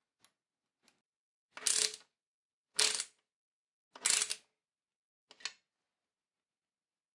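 Ratcheting hex driver turning the clamp bolt of down-tube shift levers on a steel bike frame: two light clicks, then three loud ratchet rasps about a second apart and a fainter one near the end.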